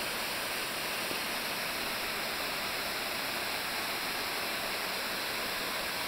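Steady rush of a waterfall, its thin, low-flow streams falling down a rock wall into a pool below.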